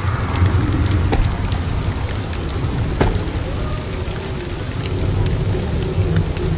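Artificial rain pouring down steadily, a dense hiss of falling water with a strong low rumble underneath and scattered sharp drop ticks close by.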